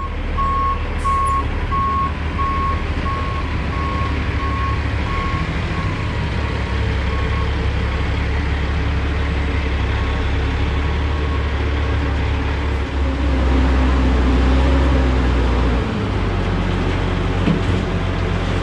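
Heavy diesel equipment running with its backup alarm beeping, a little under two beeps a second, the beeps fading out after about seven seconds. The engine gets louder about thirteen seconds in and drops back about three seconds later.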